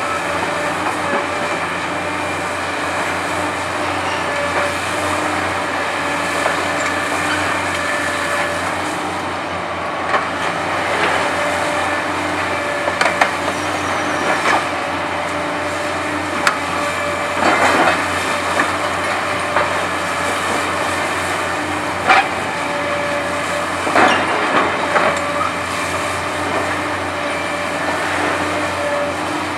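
Hitachi ZX870LCH-5 demolition excavator running steadily while its Verachtert VT 60 scrap shear bites into a steel structure. Irregular metallic bangs and crunches come through the second half, the sharpest about 22 seconds in.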